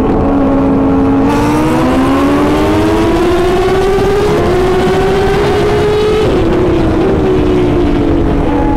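Superbike engine pulling hard at highway speed. Its pitch rises steadily for about three seconds, steps once at a gear change, then holds and eases off a little, over a steady rush of wind and road noise.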